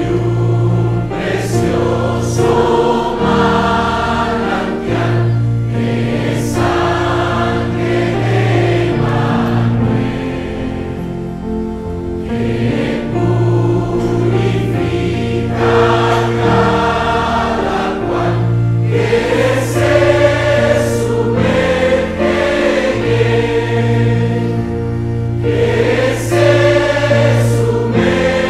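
Choir singing a Christian hymn, phrase after phrase, with short breaks between phrases over sustained low notes.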